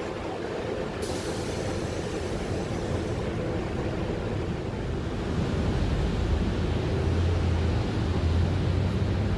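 Steady rumble and running noise of a moving vehicle, growing louder and deeper about halfway through.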